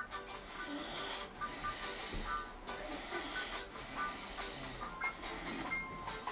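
A sleeping man snoring: two long, breathy snores about two seconds apart, over faint background music.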